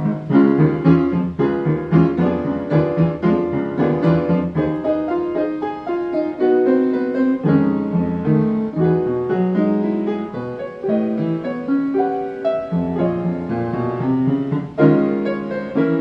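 Piano playing: a continuous piece with bass notes under a busy melody line. It softens briefly past the middle and comes in louder again near the end.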